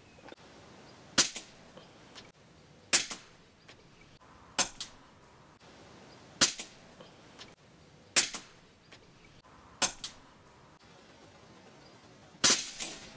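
A row of seven shots from a Rossi 8122 rifle firing subsonic .22 LR rounds, one every second and a half to two seconds. Each shot is a sharp crack followed a fraction of a second later by a fainter second crack.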